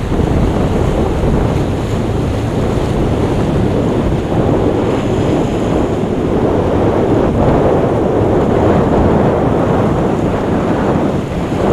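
Wind buffeting the microphone over the steady wash of waves and surf.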